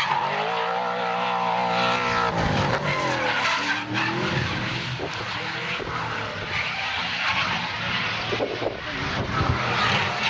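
Drift car engine revving at high revs, its pitch rising and falling with the throttle, over the squeal and hiss of tyres sliding.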